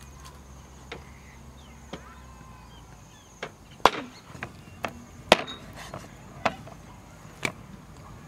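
Cleaver chopping raw pork on a wooden chopping block: about ten sharp, irregularly spaced whacks, the loudest two in the middle.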